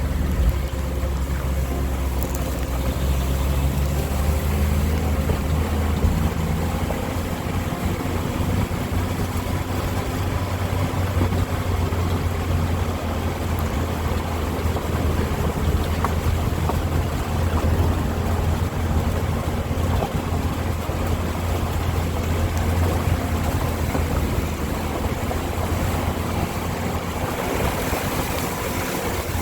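Suzuki SJ410's small engine running steadily under way, a noisy low drone heard from inside the cabin with road and water noise over it. Near the end the drone eases off.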